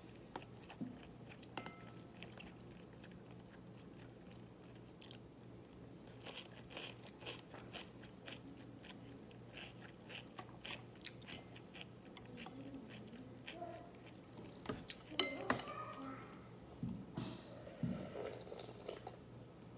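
Close-up chewing and crunching of a mouthful of naengmyeon with cucumber: a run of quick crisp crunches through the middle, then louder bites and mouth clicks near the end.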